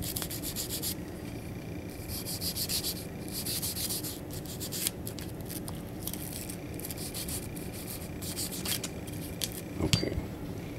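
Small bristle brush scrubbing inside a Glock pistol slide in several short bouts of scratchy rubbing, with small clicks of the polymer-and-steel slide being handled. A knock near the end, as the slide is set down or tapped.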